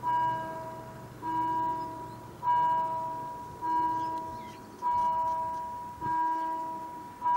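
Railway level-crossing warning bell ringing in single strokes about every 1.2 seconds, each fading out before the next. It signals that the crossing is closing for an approaching train.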